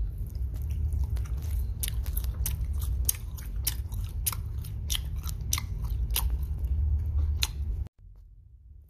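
Wet, sticky chewing of a sugar-coated jelly roll candy: a run of sharp mouth clicks, about three a second, over a steady low hum. The sound drops off suddenly near the end.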